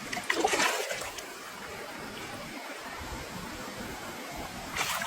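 Water rushing and splashing, with louder surges about half a second in and again near the end.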